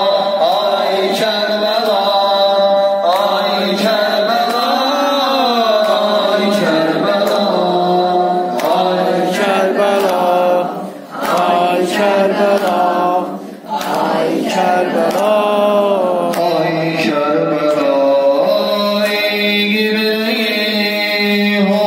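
A man chanting a Shia religious lament into a microphone, in long, wavering melismatic notes, with two short breaths in the middle.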